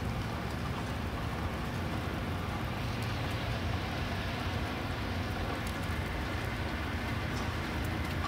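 Steady outdoor city ambience: a low rumble of distant traffic under an even hiss, which swells a little about three seconds in.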